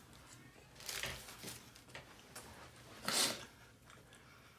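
Eating noises from tacos: two short crackling sounds, a small one about a second in and a louder one around three seconds in.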